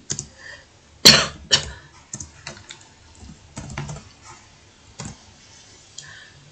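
Computer keyboard being typed on in short, irregular runs of key clicks, with two louder sharp sounds about a second in and half a second apart.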